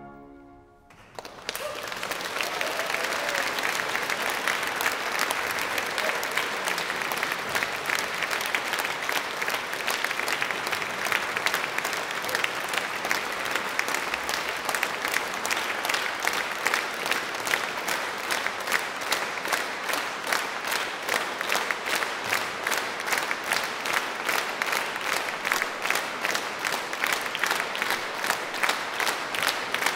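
Audience applauding as the last chord dies away. The clapping starts about a second and a half in and, around halfway through, settles into steady rhythmic clapping in unison.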